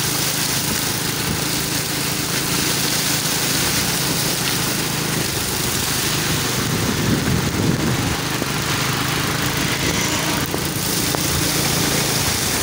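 Small motor scooter engine running steadily while riding through floodwater in heavy rain, under a constant hiss of rain and water from the tyres; the sound swells briefly about seven seconds in.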